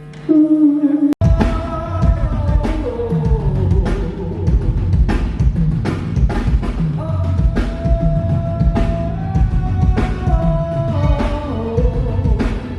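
Live rock band playing: drum kit and bass with a lead melody of long held notes that step up and down. It starts just after the beginning, drops out for a split second about a second in, then runs on.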